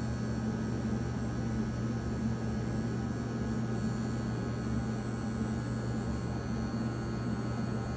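Wahl Bravura 5-in-1 clipper, on its 40 blade setting, running with a steady hum as it trims hair along the edge of a dog's ear.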